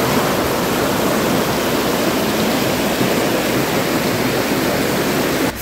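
Mountain creek rushing over rocks: a steady, loud rush of white water that cuts off suddenly near the end.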